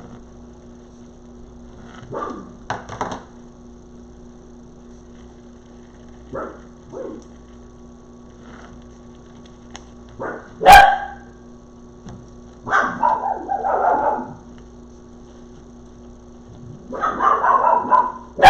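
Dogs barking in short bursts: a few single barks, then the loudest sharp bark about halfway through and longer runs of barking near the middle and at the end.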